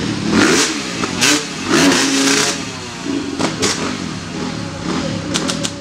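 Motocross bike engines revving, their pitch gliding up and down over and over, with several short noisy bursts in the first two and a half seconds and a few sharp clicks near the end.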